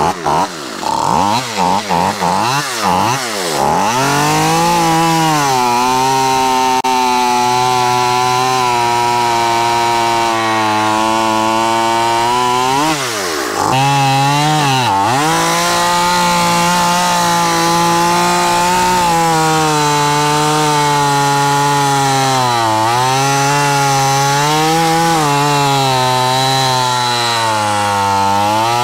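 Two-stroke gas chainsaw revved up and down in several quick blips, then held at full throttle cutting through a large log, the revs sagging and recovering a few times under load. The saw is being run without its air filter, on pump gas with no two-stroke oil mixed in.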